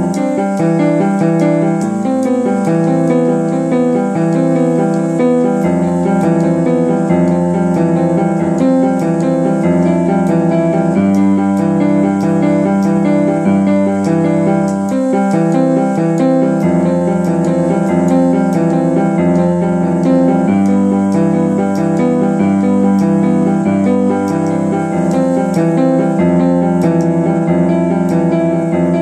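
Keyboard music with a piano-like sound, playing sustained, layered chords over a bass note that changes every second or two, at a steady, even loudness.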